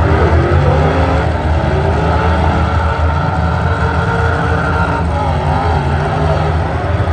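Demolition derby cars' engines running, a loud steady rumble with pitch rising and falling as they rev.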